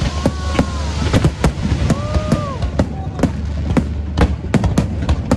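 Aerial fireworks bursting in quick, irregular succession, many sharp bangs and crackles a second over a steady low rumble. Two or three short tones rise and fall near the start and around two seconds in.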